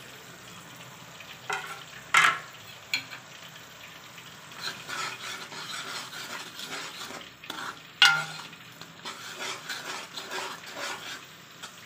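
Metal spatula stirring spiced tomato masala as it sizzles in a metal pot, scraping the bottom, with several sharp clanks of the spatula against the pot, the loudest about two and eight seconds in.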